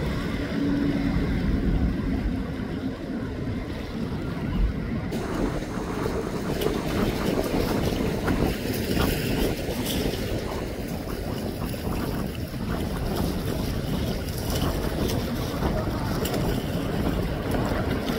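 Wind buffeting the microphone over the steady rumble of a boat and the water around it; a hissier rush of wind and water comes in about five seconds in.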